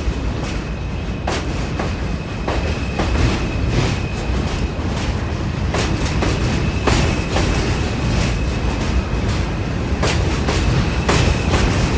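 New York City subway train running along the track: a continuous rumble, a steady high-pitched whine, and sharp clicks at irregular intervals as the wheels pass over rail joints.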